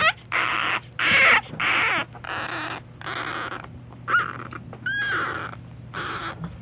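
Newborn puppies, a week old, squeaking and grunting: a run of hoarse, raspy cries about twice a second, then a couple of short high squeaks near the middle and more raspy cries after.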